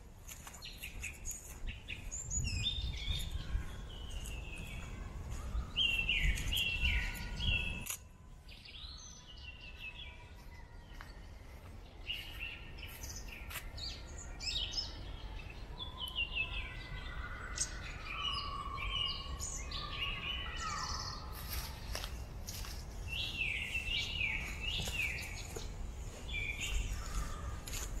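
Several songbirds singing, short chirping phrases repeated one after another throughout. Under them a low rumble, heaviest at first, cuts off suddenly about eight seconds in and returns fainter a few seconds later.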